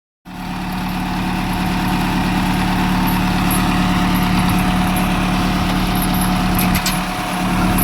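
Heavy diesel engine of earthmoving machinery running steadily at a constant pitch, with a brief dip and a few clicks about seven seconds in.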